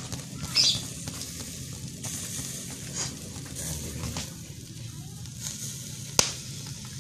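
Squid sizzling on a wire grill over charcoal, with a steady hiss and a few sharp ticks, the sharpest about six seconds in.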